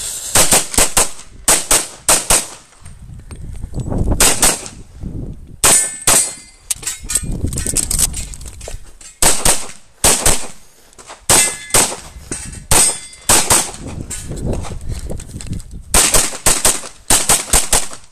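Semi-automatic pistol fired rapidly in quick pairs and short strings during a practical-shooting stage, with some hits ringing on steel plates. Rustling and footfall noise from the shooter moving fill the gaps between strings.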